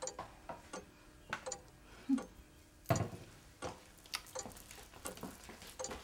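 Light clicks and taps from someone moving about a kitchen, coming unevenly at about two or three a second, with one louder knock about three seconds in.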